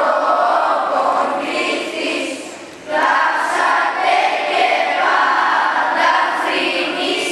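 A choir singing an Orthodox Good Friday hymn of the Epitaphios service in long phrases, with a short break about three seconds in before the next phrase starts.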